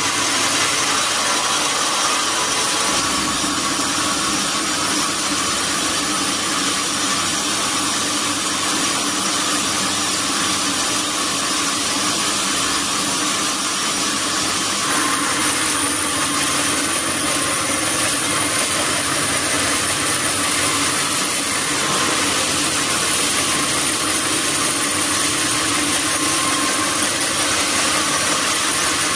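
Sawmill saw running steadily while cutting durian wood, with a thin high whine joining about halfway through.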